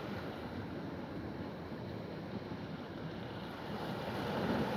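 Steady sea and wind noise: open water washing and waves breaking, with some wind on the microphone.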